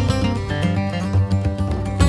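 Background music with a strummed acoustic guitar.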